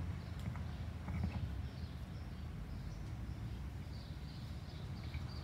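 Quiet open-air ambience between speakers: a steady low rumble with a few faint clicks, and faint bird chirps high up from about two seconds in.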